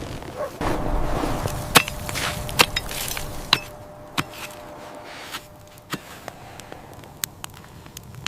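A series of sharp, irregular knocks or cracks, about six of them spread over several seconds, over a quiet rustling background.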